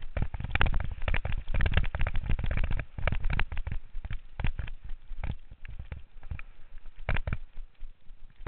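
Downhill mountain bike clattering and rattling over rough trail at speed, picked up by a helmet-mounted camera: a dense run of knocks and clicks with low rumble for about the first three seconds, then more scattered knocks.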